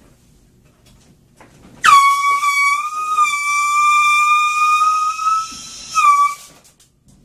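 Compressed-gas air horn blasting: one long, loud blast starting about two seconds in and lasting about three and a half seconds, then a short second blast near the end.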